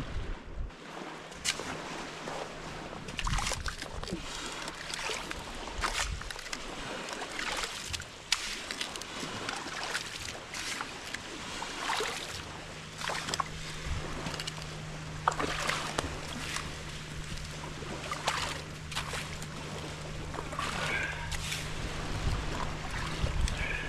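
Shovel digging wet sand out of a water-filled trench: repeated scrapes and splashy scoops of sand and water. A steady low hum comes in about halfway through.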